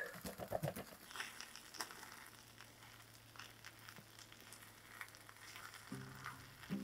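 Faint sizzling of takoyaki batter cooking in the wells of an electric takoyaki pan, with light ticks of bamboo chopsticks turning and tucking the balls. Soft music comes in near the end.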